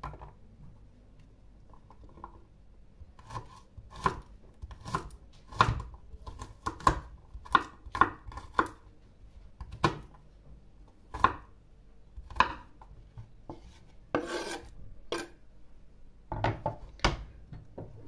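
Small kitchen knife chopping garlic cloves on a wooden cutting board: irregular sharp knocks, roughly one or two a second, with a short scraping rub about three-quarters of the way through.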